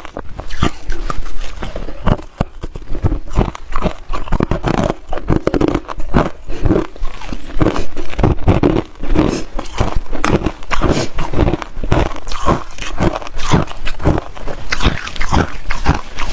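A mouthful of crushed ice chewed close to the microphone: rapid, loud crunching, several crunches a second.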